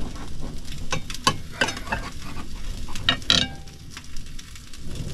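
Sausages and black pudding sizzling in a Ridgemonkey pan on a gas camping stove. Over it come a few sharp clicks and scrapes as a knife cuts a bread roll on a plate, loudest about three seconds in.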